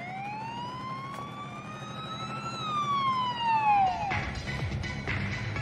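A siren wailing: one long tone that rises slowly, then falls away. About four seconds in, music with a steady beat starts.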